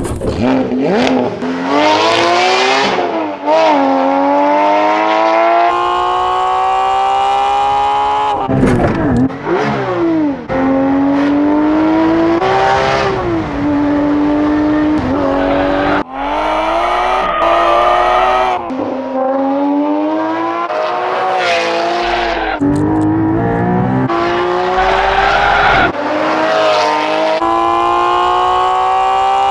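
Porsche 718 GT4's 4.0-litre flat-six breathing through a Kline Inconel exhaust, driven hard: the engine note climbs steadily in pitch through each gear and drops sharply at every shift, many times over, with a few short throttle blips in between.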